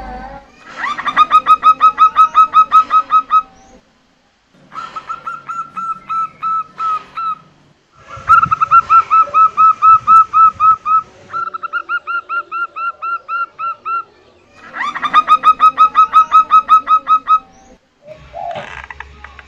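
Female zebra dove (perkutut) calling in quick runs of short, clipped cooing notes, about five notes a second. There are about five runs, each a few seconds long, with brief pauses between them.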